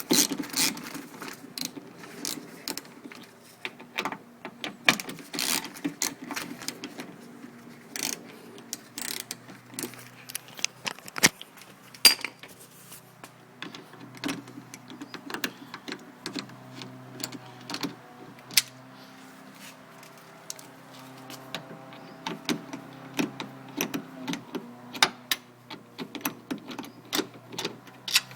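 T30 Torx screws being loosened from a car door's inner frame: scattered sharp metallic clicks and taps of the driver bit and tool, with short stretches of a low steady hum in the second half.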